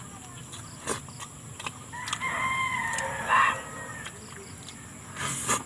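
A rooster crowing once, a drawn-out call of about a second and a half, with scattered sharp clicks and smacks of someone eating with his hands.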